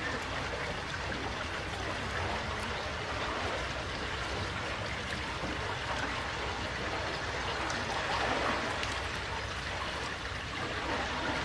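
Steady rushing of water in a canal lock chamber, as water runs through the lock's sluices.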